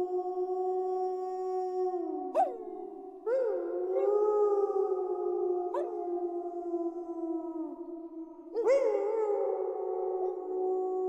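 A pack of wolves howling in chorus: several long, held howls overlap at different pitches. New howls rise in about three seconds in and again near nine seconds, with a few short sharp yips between.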